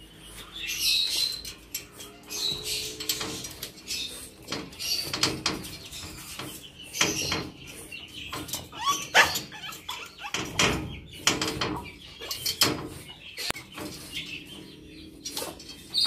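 A dog moving about and being handled, with irregular knocks, scuffs and clicks.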